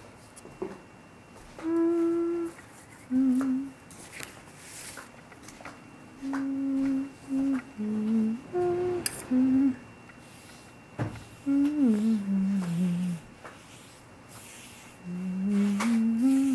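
A person humming a slow tune in short held notes, low in the voice, with a falling phrase about two thirds of the way through and a rising one near the end. Between the notes, faint swishes of a wet brush on paper and one sharp click.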